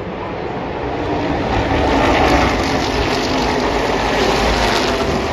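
NASCAR stock cars with V8 engines passing on the track as a pack, the engine noise building and loudest about two seconds in.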